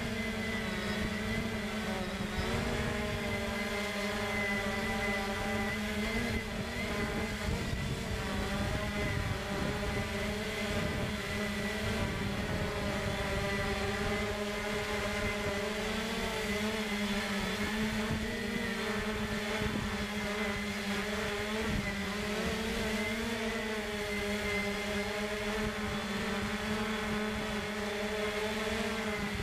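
Quadcopter drone's motors and propellers humming steadily, the pitch wavering slightly as it manoeuvres, heard through the drone's own microphone.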